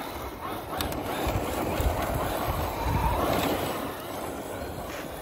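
ARRMA Mojave 4S RC truck's brushless motor whirring as the truck slides across dry grass and dirt, its tyres scrabbling and throwing up dust. The noise swells about a second in and eases off about four seconds in.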